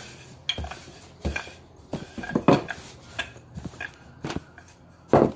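A wooden rolling pin knocking and rolling on a wooden pastry board as laminated dough is rolled out. It makes irregular knocks and thuds, with the loudest thud just before the end.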